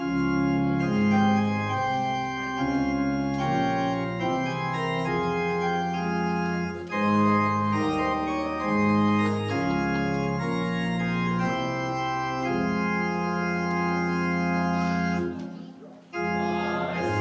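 Church organ playing a hymn in full sustained chords that move every half second or so, with a brief break near the end before it starts again.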